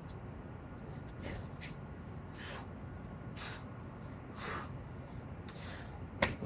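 A man breathing hard from exertion, short forceful breaths about once a second, with one sharp slap on concrete near the end.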